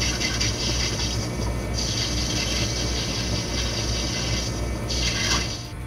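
Metal lathe running while its tool faces the end of a brass cylinder: a steady motor hum under a high, hissy cutting noise that breaks off briefly and comes back twice, the sound dropping away near the end as the lathe stops.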